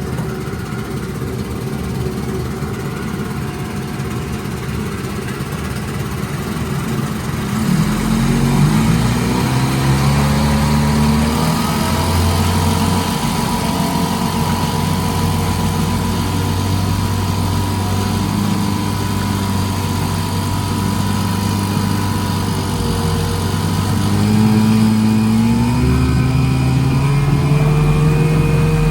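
1954 Johnson CD-11 5.5 hp two-stroke outboard motor running in a test tank. It idles low and steady, is throttled up about eight seconds in to a faster steady run, and speeds up again near the end.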